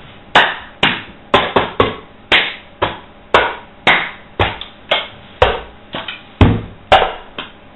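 Cup-game rhythm: hand claps and a plastic cup knocked and slapped on a wooden table. About seventeen sharp strikes in a steady pattern, roughly two a second with quicker runs of two and three.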